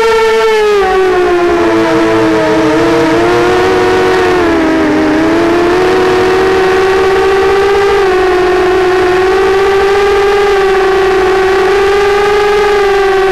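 Diatone 180 FPV racing quadcopter's brushless motors and propellers whining, heard from its own onboard camera. The pitch wavers with the throttle, dipping about five seconds in, then holds steady.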